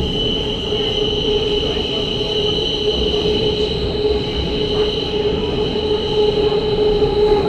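Train running with a steady squeal of its wheels on the rails: several high tones held throughout over a low rumble.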